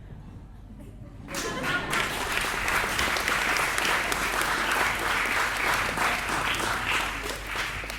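Audience applauding, breaking out about a second in and going on steadily, with some voices among the clapping.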